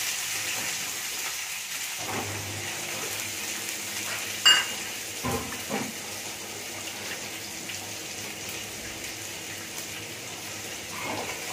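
Chopped onions, curry leaves and green chillies sizzling steadily in hot oil in a frying pan, just after the onions go in. A sharp clink about four and a half seconds in, and two lighter knocks soon after.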